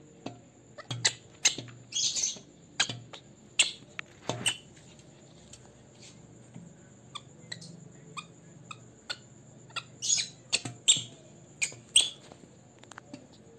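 Baby macaque making a string of short, sharp squeaks and chirps at irregular intervals, with a few longer breathy squeals about two seconds and ten seconds in.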